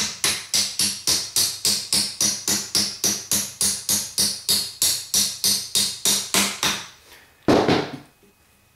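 Hammer tapping the feed-tray hinge pin into the receiver of a deactivated MG42/MG53 machine gun, metal on metal, in a steady run of light taps about four a second that stops near the end, followed by one louder clunk.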